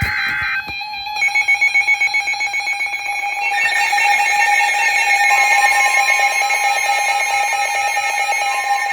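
Emergency alert tones for a severe thunderstorm warning: several alarm tones sound at once, opening with a rapid pulsing beep that gives way to steady tones. About five seconds in, a steady tone just above 1 kHz joins them, which fits the NOAA Weather Radio warning alarm tone.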